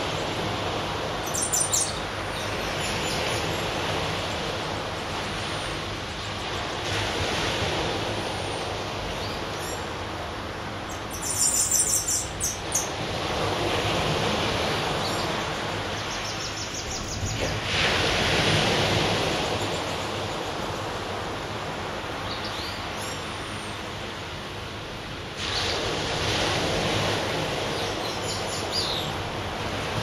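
Surf breaking on a sandy beach: a steady wash that swells and fades every few seconds. Birds chirp in short bursts over it, loudest about eleven seconds in.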